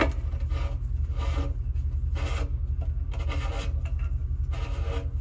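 Irregular rubbing and scraping as a light wire is drawn through a hole in a motorcycle's rear fender, with gloved fingers working against the fender, over a steady low hum.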